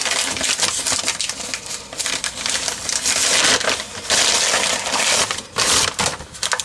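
Brown paper bag rustling and crinkling as hands dig through it, in uneven handfuls with brief pauses.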